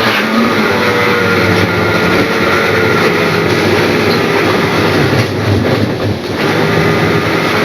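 Electric model train running along the layout's track: a steady motor whine with a slightly wavering pitch over the rumble of the wheels on the rails.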